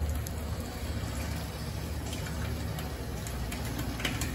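A wooden ladle stirring a thick rice, dal and vegetable mix in an aluminium pot, with a few scrapes and soft clicks over a steady low rumble from the pot on the stove.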